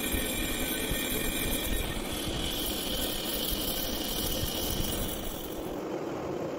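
Heavy-duty metal lathe turning a large metal gear blank, with the tool cutting and coolant running onto the work: a steady machining noise with a high hiss over the drone of the machine. The high hiss drops away near the end.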